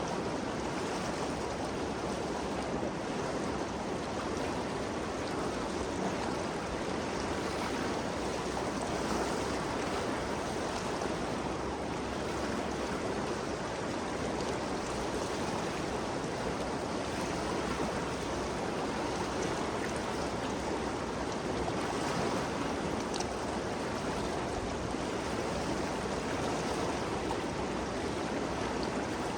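The Ganges River flowing: a steady, even rush of moving water with no changes or breaks.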